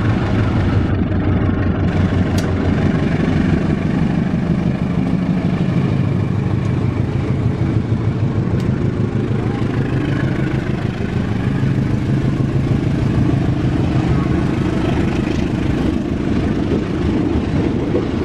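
Diesel-electric locomotive engine running loud and steady as it approaches and passes close by, followed by its passenger coaches rolling past on the rails.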